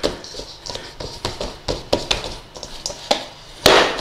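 A hand patting and pressing shortcrust pastry dough down into a stainless steel mixing bowl: a run of irregular soft pats and knocks, with one louder thump near the end.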